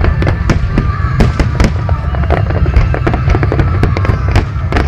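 Fireworks display going off: a rapid, irregular string of sharp bangs and crackles, several a second, over a constant heavy low rumble.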